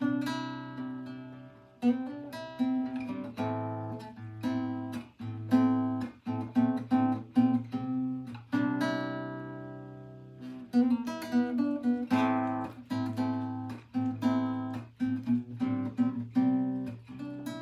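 Background music: acoustic guitar strumming and picking chords in a gentle, unhurried rhythm.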